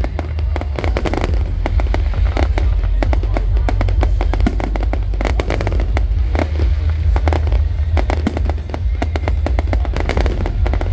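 Fireworks going off in a rapid, irregular run of sharp bangs and crackles, several a second, over a continuous deep rumble.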